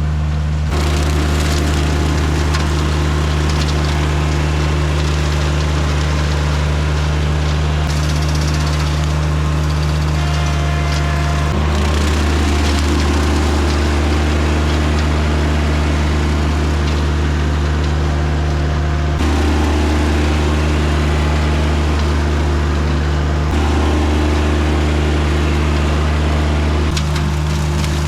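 Tractor engine running steadily at working speed while driving a brush hog mower, its tone shifting slightly now and then as the load changes.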